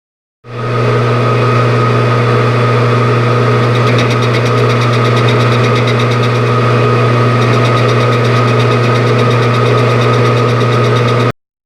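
Metalworking machine tool running at 460 RPM, with a steady motor hum and a higher whine, cutting cast iron with a carbide WNMG insert. From about four seconds in, a fast, even ticking from the cut joins the hum. The sound starts and stops abruptly.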